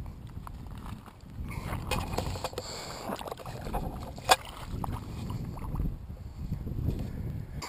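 Shallow water splashing and sloshing as a small bass is let go back into the water, over a low rumble on the microphone, with one sharp knock a little past the middle.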